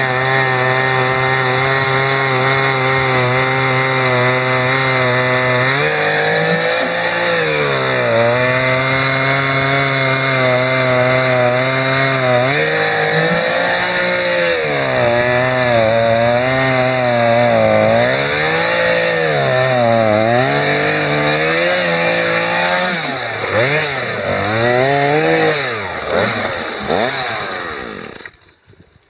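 Gas-powered ice auger running hard as it drills through thick ice, its engine note steady at first, then sagging and recovering over and over as the bit bites and is worked up and down in the hole. Near the end the engine slows and stops.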